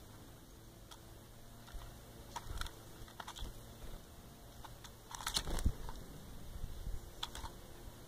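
Blue tits and great tits pecking at rolled oats in a plastic bowl and hopping on its rim: irregular small clicks and taps. A louder cluster of taps with a dull thump comes about five and a half seconds in.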